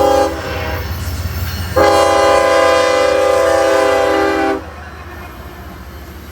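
Amtrak locomotive's multi-note air horn: a short blast right at the start, then a long blast of about three seconds starting near two seconds in, which cuts off sharply. A steady rumble of the passing train runs underneath and carries on after the horn stops.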